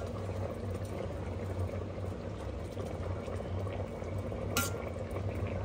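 Chicken biryani liquid and rice simmering with a soft bubbling in an Instant Pot's stainless steel inner pot, while a ladle stirs and levels the rice, over a steady low hum. One sharp click about four and a half seconds in.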